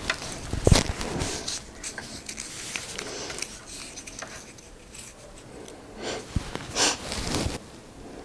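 Close-miked handling noises: a string of clicks, taps and short rustling bursts, louder about a second in and again near the end.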